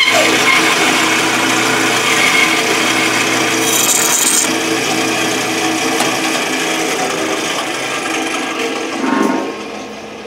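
Bandsaw running steadily and cutting through a wooden block, with a rasping sound from the blade in the wood over the motor hum. It gets quieter over the last couple of seconds.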